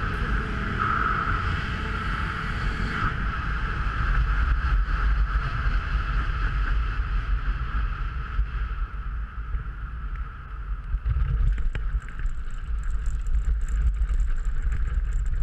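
Airflow rushing and buffeting over the microphone as a hang glider glides in low over grass to land. About two-thirds through the rush dips, then turns uneven, with scattered short knocks and rustles.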